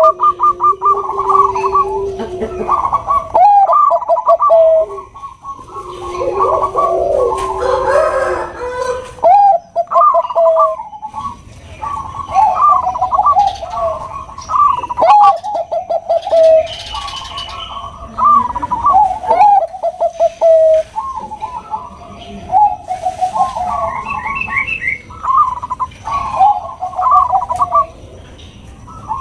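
Bangkok perkutut (zebra dove) cooing in repeated phrases, each a quick run of short notes running into longer sliding coos.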